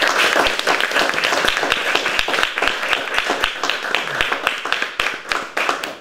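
Audience applauding: many hands clapping steadily at the close of a talk.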